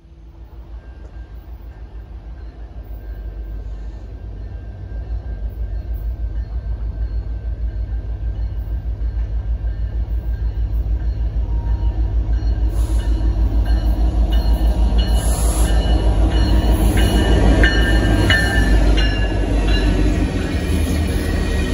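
Two EMD SD70M-2 diesel-electric locomotives, each with a two-stroke V16 engine, approach and pass close at the head of a freight train. Their low engine throb grows steadily louder. From about halfway in, high squealing from the wheels on the rails joins in.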